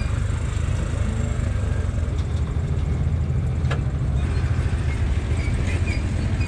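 An engine running steadily with a low, even rumble, with a single short click about four seconds in.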